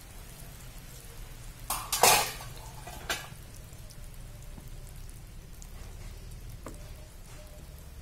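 Metal ladle scraping and knocking in an aluminium wok as boiled cassava leaves are dropped into simmering coconut-milk curry. The loudest scrape and splash comes about two seconds in, with a sharp knock a second later and a fainter one near the end, over a steady low hum.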